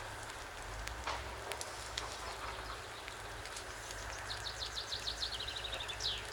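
A songbird sings one phrase, a quick run of repeated high notes ending in a downward flourish, near the end, over scattered faint clicks and a steady low rumble.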